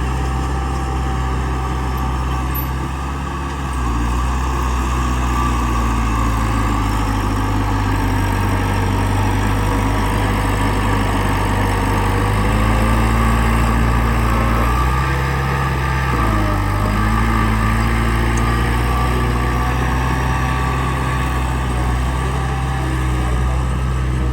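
Heavy earthmoving machinery's diesel engine running steadily. Its note steps up about four seconds in and shifts a few more times later on.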